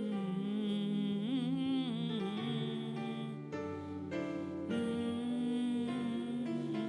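Slow worship music: a voice hums long held notes, the first wavering with vibrato about a second in, over steady sustained chords.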